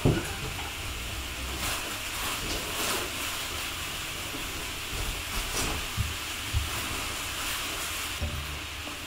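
Large cardboard box being handled on a wooden floor: a thump as it is set down at the start, then scattered light knocks and scrapes of cardboard over a steady hiss.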